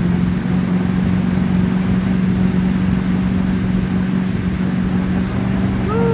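Tow boat's engine running steadily at speed over a rush of wind and water noise. A brief rising-and-falling tone cuts in near the end.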